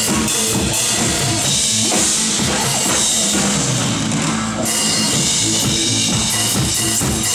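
Live drum kit with clear acrylic shells played along to a pop backing track: a steady kick-drum pulse with snare hits and cymbal crashes over the recorded song. The cymbals drop out for a moment about two-thirds through, then come back in.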